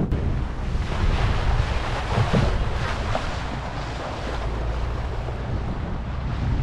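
Wind buffeting the microphone and water rushing past the hull of a moving motorboat, over the low, steady drone of its engine.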